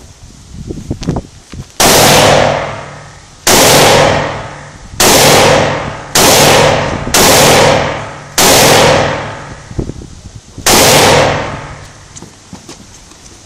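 Seven shots from an HK MR223 semi-automatic .223 rifle, fired about one to two seconds apart, each followed by a long echoing tail. Faint clicks come just before the first shot.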